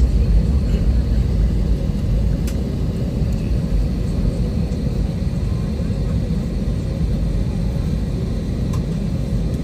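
Airliner cabin noise while taxiing: a steady low rumble from the engines and the aircraft rolling along the taxiway, heard from inside the cabin.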